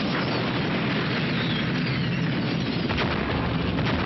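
Action-film battle sound effects: a dense, continuous din of explosions and fire, with two sharp cracks of gunfire near the end.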